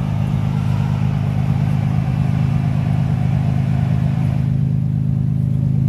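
Off-road SUV's engine running steadily under load as it pulls up a heavy wet-snow-and-sand climb, with a constant low drone and a churning noise over it.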